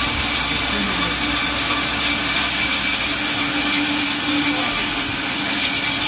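A 1938 sawmill machine running steadily: a constant loud mechanical noise with a high, steady whine.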